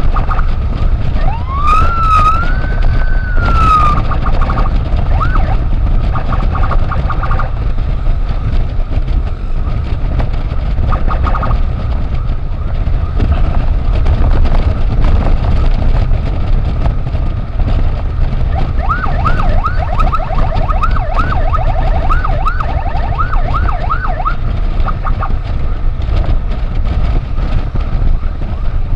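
Electronic emergency siren switched between tones: a rising wail about a second in, then short quick yelps. A brief burst comes around the middle, and a run of rapid yelps follows in the second half. All of it sits over a loud, steady low rumble.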